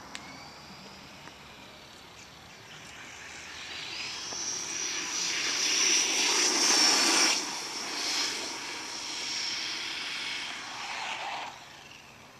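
Exceed Dynamite 1/10-scale RC truck's small nitro engine running at high revs as the truck drives by. It is a high whine that grows louder from about three seconds in, is loudest around the middle, and fades away near the end.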